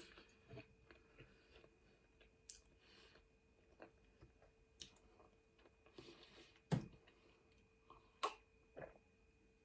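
Faint close-up mouth sounds of someone drinking from a glass: small wet clicks and sips, with swallows. The clearest is a low gulp a little after halfway, followed by another about a second later.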